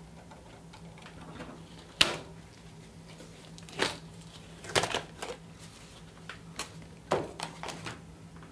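Handling noises: a handful of sharp clicks and crackles as a taped cardboard template is marked and lifted off a car's steel deck lid, the sharpest about two seconds in, over a steady low hum.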